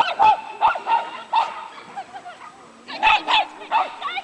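A dog barking in short, sharp barks: a quick run of five or so, a pause of about a second and a half, then another quick run.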